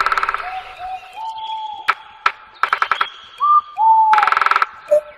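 A bird calling: short clear whistled notes, some sliding slightly in pitch, broken by harsh buzzy rattles twice, with two sharp clicks near the middle.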